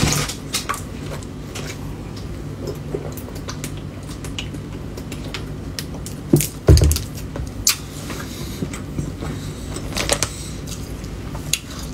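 A person chewing fried tofu, with many small clicking mouth and handling sounds and one louder low thump about halfway through.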